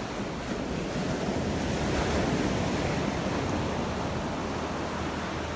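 Sea surf washing onto a beach, a steady rush of breaking waves that swells slightly about two seconds in, with wind on the microphone.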